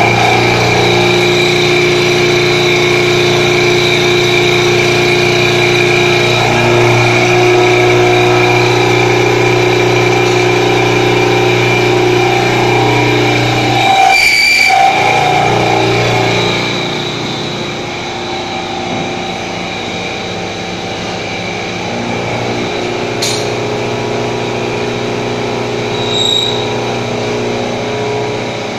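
CNC vertical milling machine with a 3.7 kW AC spindle, its end mill cutting a metal block under flood coolant: a steady machining whine made of several held tones. There is a brief break about halfway through, and from then on the cutting sound is a few dB quieter.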